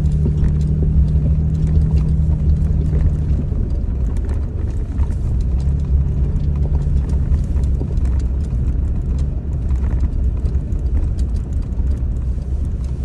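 Vehicle driving a rough dirt trail, heard from inside the cab: a steady low engine and tyre drone with many small clicks and rattles over the top. The engine note drops away about three and a half seconds in and comes back briefly a little later.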